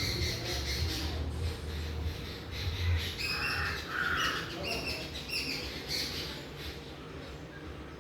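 Wild birds calling: a run of short, high calls about three to six seconds in, over a low hum that fades out in the first few seconds.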